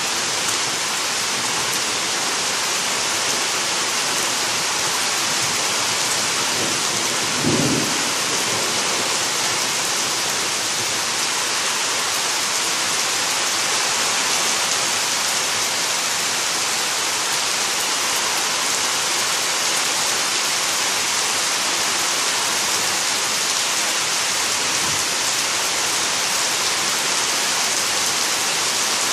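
Heavy driving rain pouring steadily on trees and ground, with one brief, low peal of thunder about seven seconds in.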